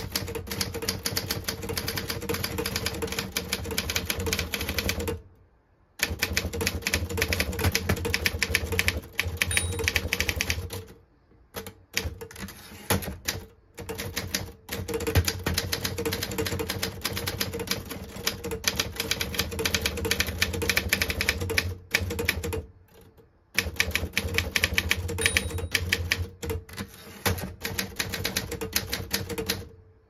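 AMC (Alpina) manual portable typewriter being typed on at speed: fast runs of key and typebar strikes on a newly fitted platen, broken by brief pauses about 5, 11 and 23 seconds in.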